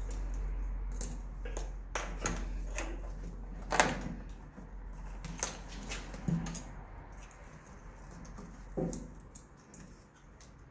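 Plastic wiring-harness connectors clicking and rattling as they are handled, unplugged and pushed together: a string of separate clicks and knocks, the sharpest about four seconds in.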